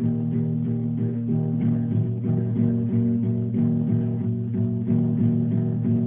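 Background music: a guitar picking a steady run of plucked notes.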